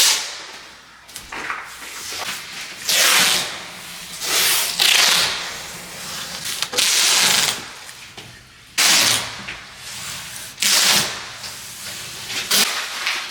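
Plastic sheeting crinkling and rustling as it is handled and hung, in repeated noisy bursts about a second long.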